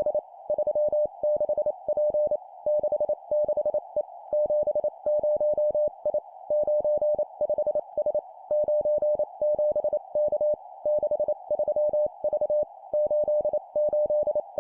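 Morse code (CW) sent at 25 words per minute as a steady, mid-pitched sidetone keyed rapidly on and off in three-character groups of two digits and a letter, with short pauses between the groups. A faint hiss sits behind the tone.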